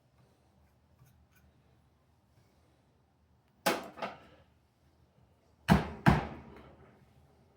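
Two pairs of sharp knocks, the second pair louder and deeper, from the espresso portafilter and tamper being handled while the coffee puck is prepared.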